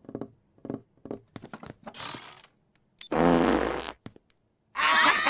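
Cartoon fart sound effect: one long, pitched fart lasting about a second, as Arnold bends to pick up a pencil. Near the end a loud burst of children's voices breaks out.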